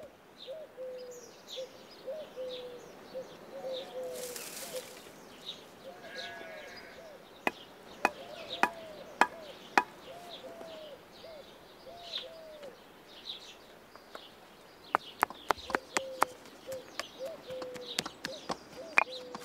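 Sharp knocks and clinks of stones and a hand tool as stones are set and tapped into a stone-faced earth hedge, in clusters in the middle and toward the end. A pigeon coos over and over in the background.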